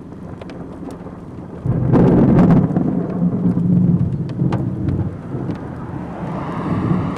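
A close thunderclap cracks about a second and a half in, loud and sudden, then rumbles heavily for several seconds. Scattered raindrop ticks sound throughout.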